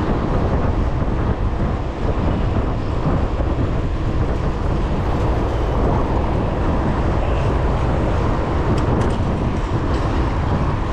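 Steady wind buffeting on the camera's microphone while riding a bicycle at speed, mixed with tyre and road noise.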